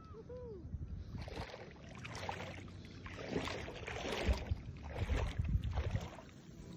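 Shallow seawater sloshing and splashing in several irregular swells, with low wind rumble on the microphone.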